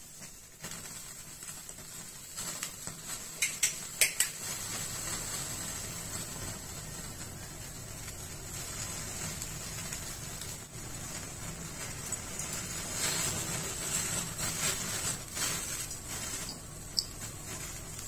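Gas stove burner flame hissing under chicken gizzards on a wire roasting grate, with the meat sizzling. A few sharp crackles come about four seconds in and once more near the end.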